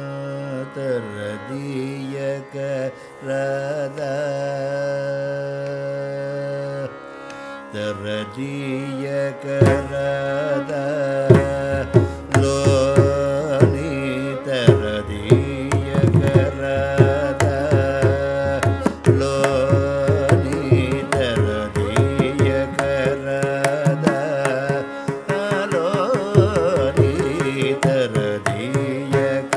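Carnatic classical music: a steady drone under a gliding, ornamented melodic line, with hand-drum percussion joining about ten seconds in and playing a fast, busy rhythm.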